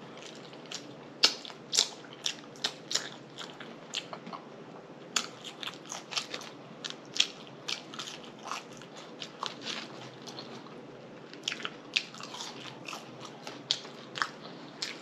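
A person chewing food close to the microphone, with many sharp, irregular mouth clicks and smacks, a few each second.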